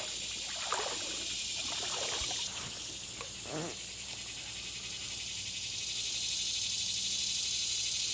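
A steady, high-pitched chorus of summer insects, with a few brief lower sounds in the first few seconds.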